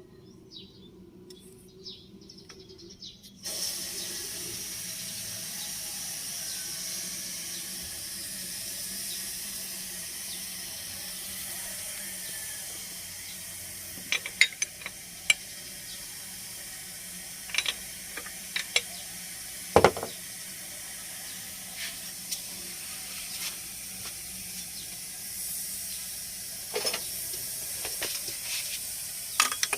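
A steady hiss that starts suddenly a few seconds in, with scattered sharp metallic clinks and knocks of hand tools working on the engine's belt drive, one louder knock about two-thirds of the way through.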